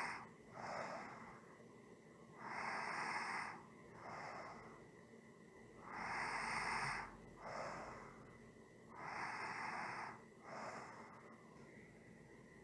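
A person breathing slowly and evenly through the airway. Each cycle is a longer, louder breath followed by a shorter, softer one, repeating about every three and a half seconds.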